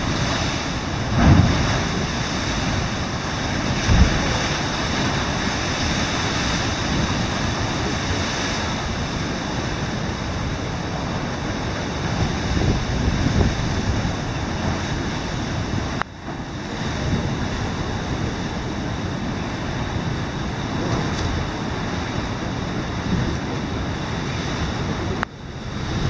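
Heavy surf breaking on a rocky coast in a strong wind, a continuous wash of noise with gusts thumping on the microphone now and then. The sound dips sharply for a moment about two-thirds of the way through.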